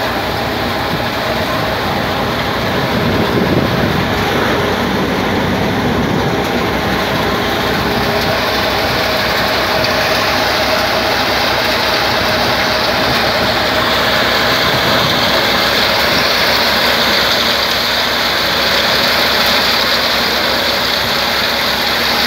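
Engine-driven machinery running steadily: a loud, even mechanical noise with a faint hum, turning somewhat hissier about halfway through.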